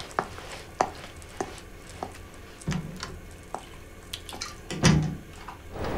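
Bath water: scattered drips and small splashes, with a louder slosh about five seconds in as someone shifts in the tub.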